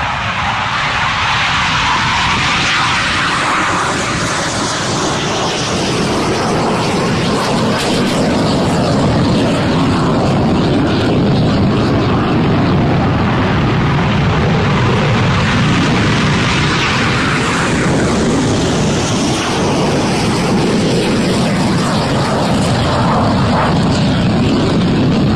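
Military jet aircraft engines: a loud, steady rushing noise that builds over the first couple of seconds and then holds.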